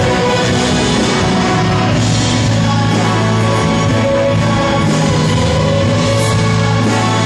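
Live church orchestra playing: violins with saxophones and brass, including a tuba, holding full, sustained chords in a steady, continuous passage.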